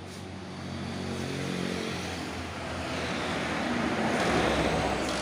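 A motor vehicle engine running, growing louder over several seconds and dropping away at the end.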